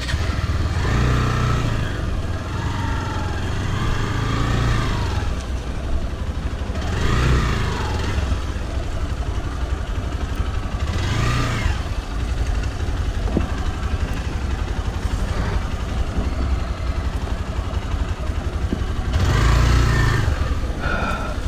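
Motorcycle engine running at low speed under a steady low rumble, revving up briefly several times, about four times in all.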